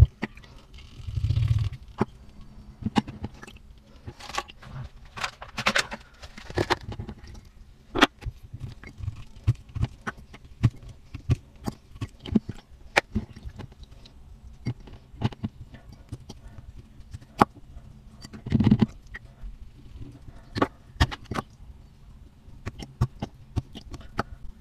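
Irregular taps, clicks and scrapes of a tool digging and chipping at a dinosaur excavation egg, with two heavier knocks about 1.5 seconds in and near 19 seconds.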